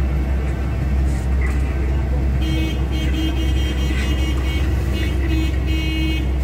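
Low drone of the bus engine heard inside the cabin. From about two and a half seconds in, a vehicle horn sounds in a run of short blasts.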